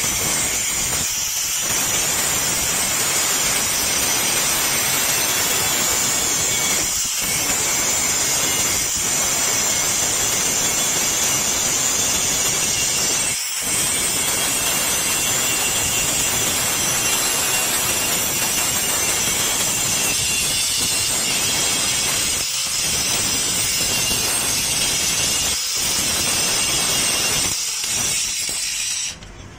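Electric angle grinder with an abrasive disc grinding a steel adjustable wrench, a steady grinding noise that eases off briefly several times as the disc is lifted. It stops about a second before the end.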